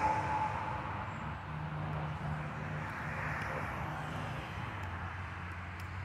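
Semi-truck driving past on a highway and moving away, its engine and tyre noise dropping off in the first second. It settles into a steady low traffic rumble.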